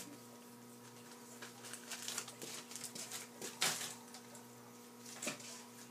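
Quiet room tone with a steady low electrical hum, broken by a few faint scattered knocks and rustles of things being handled out of view.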